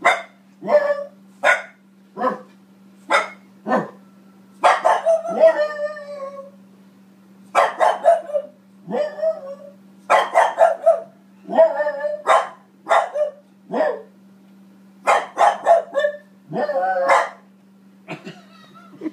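A Frenchton (French bulldog–Boston terrier mix) barking repeatedly, in single sharp barks and quick runs of several, with short pauses between.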